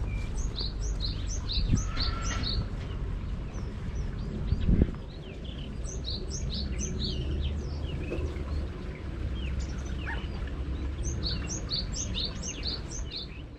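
Small birds chirping in three bouts of quick, high, repeated notes, each note sweeping down in pitch, over a low steady rumble. A single dull thump a little under five seconds in is the loudest sound.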